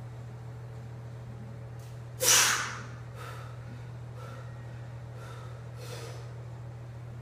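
A weightlifter's loud, sharp exhale about two seconds in, after driving up out of a heavy barbell back squat, followed by four shorter breaths about a second apart as he braces for the next rep. A steady low hum runs underneath.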